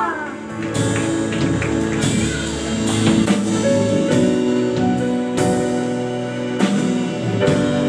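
Live church worship band playing an instrumental passage after the singing stops: drum kit strikes over held electric guitar and keyboard chords. The sound cuts off suddenly at the end.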